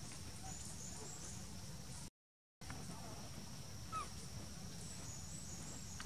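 Outdoor forest ambience: a steady high insect drone over a low rumble. The sound drops out for half a second about two seconds in, and a single short rising squeak comes about four seconds in.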